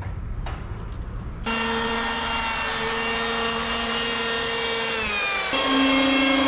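Electric hand planer running along a thick timber with a steady high whine that starts suddenly about a second and a half in. Just after five seconds in, the pitch dips briefly, then steps up a little and gets louder.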